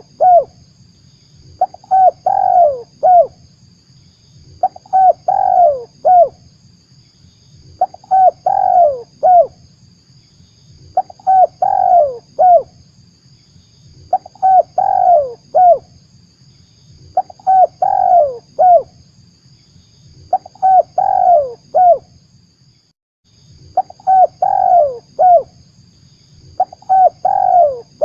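Spotted dove (tekukur) cooing in a lure call recording: the same short multi-note coo phrase repeats about every three seconds, nine times over. A faint steady hiss runs beneath it and cuts out briefly a little past the middle.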